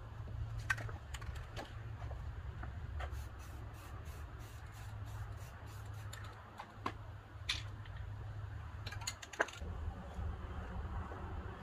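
Scattered light clicks and taps, irregular and close together at times, over a steady low rumble.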